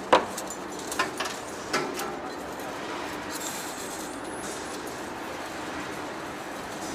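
Steady running noise of heavy workshop machinery, with three sharp knocks in the first two seconds.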